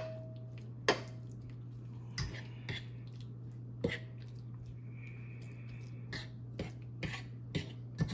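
Kitchen utensils clinking and knocking against pots and dishes: a dozen or so scattered sharp clicks, some with a short metallic ring, over a steady low hum.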